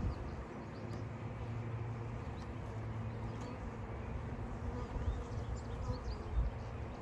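Honey bees from a freshly opened package buzzing as a steady drone of many bees around the open hive, with a few light knocks from handling near the end.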